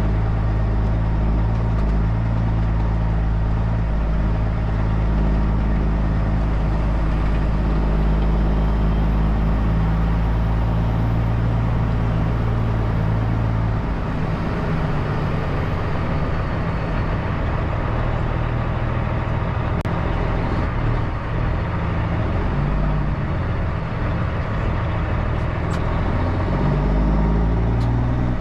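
Heavy truck's diesel engine running steadily under way, with road and cab noise; the engine note shifts about halfway through and again near the end.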